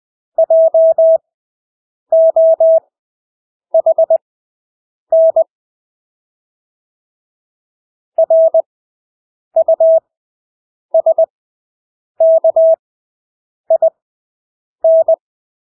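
Morse code practice tone: a single steady mid-pitched beep keyed into dots and dashes at 20 words per minute, each character followed by a wide Farnsworth gap. A longer word gap falls about a third of the way in.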